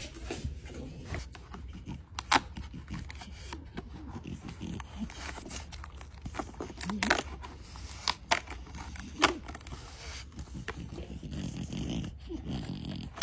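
French bulldog sniffing and breathing noisily, nose to the calendar, with several sharp clicks as the cardboard doors of a dog advent calendar are pushed open.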